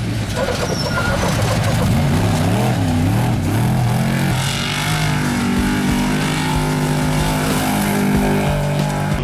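Off-road race truck engine revving hard, its pitch rising and falling repeatedly over the first few seconds, then holding at a steadier high speed.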